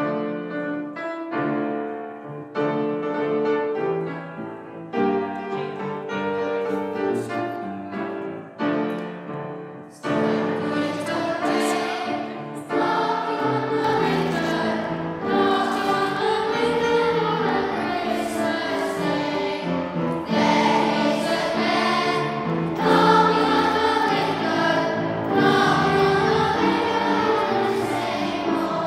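Children's choir singing a carol with piano accompaniment. The piano plays an introduction for about ten seconds before the voices come in.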